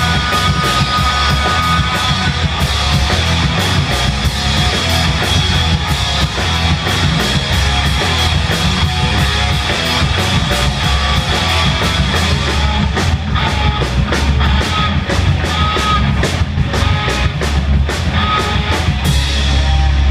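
A live rock band playing loud: electric guitars, bass guitar and a drum kit in a heavy, driving passage, with the cymbal hits coming thicker in the second half.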